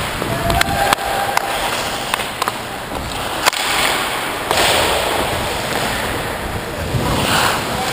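Ice hockey play: skate blades scraping and hissing across the ice, with several sharp clacks from sticks and puck.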